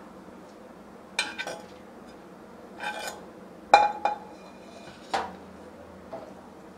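Steel spatula clinking and scraping against a stainless steel plate as it pushes and presses a lump of cooked chana dal paste. About six separate clinks and scrapes, the loudest just past the middle.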